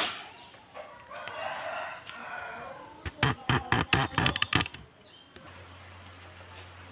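A rooster crowing once in the background, followed by a quick run of about eight sharp knocks. A steady low hum comes in near the end.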